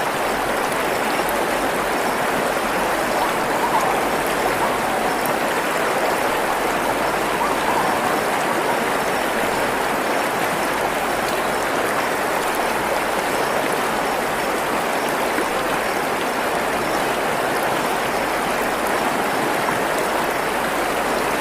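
Running water of a stream flowing steadily over rocks, a continuous splashing rush.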